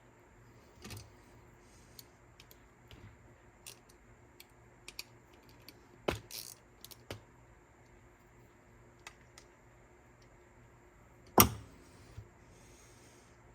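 Scattered light clicks and taps of small parts and tools being handled on a cassette deck's transport mechanism, with a sharper click about six seconds in and the loudest click about eleven seconds in.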